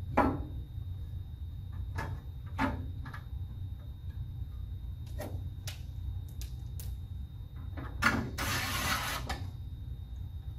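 Sheet-metal plates and tools being handled on a table: scattered sharp knocks and clanks of metal. The loudest knock comes about eight seconds in and is followed by about a second of rushing noise.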